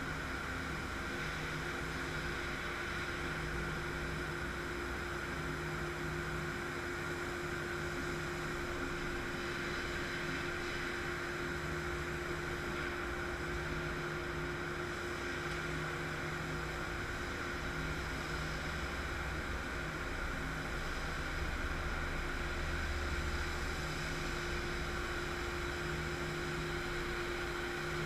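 Laser cutting machine running as it trims a stamped sheet-metal trunk pan: a steady hum and hiss with one constant mid-pitched tone.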